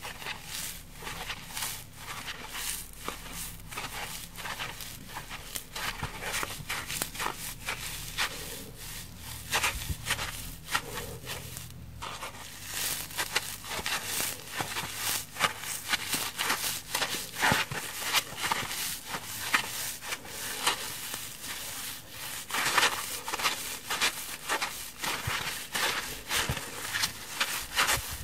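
Kitchen scrub sponges (foam blocks with a scouring pad on one side) being squeezed and bent by hand close to the microphone: a dense run of small crackles and rustles that swell with each squeeze.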